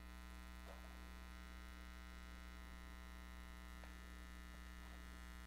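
A steady electrical mains hum in a quiet room. A few faint, brief touches come from fingers handling a cleaning patch and jag on a steel bench.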